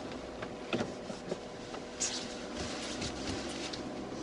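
Fiat Panda being driven, with steady engine and road noise heard from inside the cabin. A few short clicks come about a second in, and sharper high ticks from about two seconds on.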